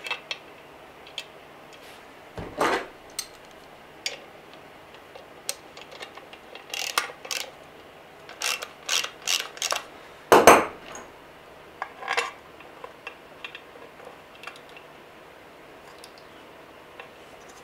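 Small metal clinks and taps of bolts and washers against a Pontiac 350 V8's timing cover as the cover bolts are started by hand. The clicks are scattered and uneven, coming in a quick cluster in the middle, with the loudest clink about ten seconds in.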